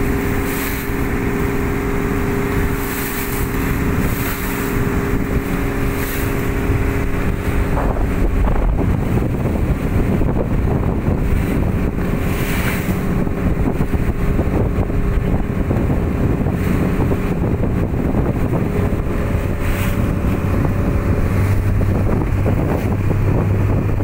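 A motorboat's engine runs with a steady drone under wind buffeting the microphone. The engine note shifts about a third of the way through, and a deeper hum comes in near the end.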